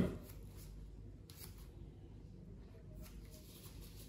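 Quiet room tone with a low steady hum and a couple of faint clicks, one right at the start and another about a second in.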